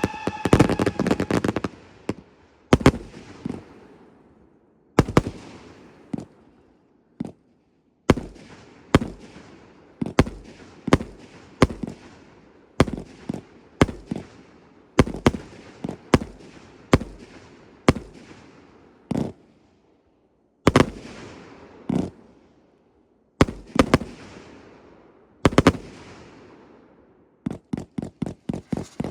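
Fireworks cakes firing. In the first second or two there is a quick run of shots with a whistle, then single sharp reports about once a second, each trailing off. A fast rapid-fire string of shots comes near the end.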